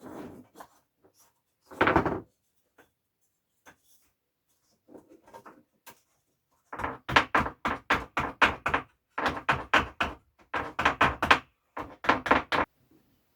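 A few wooden clunks near the start, then hammer blows, about four a second in four quick runs, while a leaning cupboard is levelled on an uneven floor.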